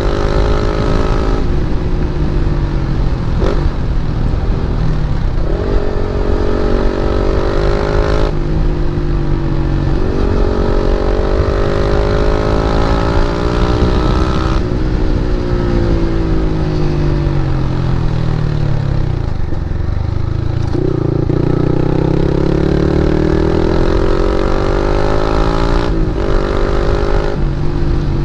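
KTM Duke 250 single-cylinder engine through an aftermarket Akrapovic exhaust, ridden hard through the gears: the pitch climbs and drops back at each of several upshifts. It falls as the bike slows about two-thirds of the way through, then climbs again under acceleration.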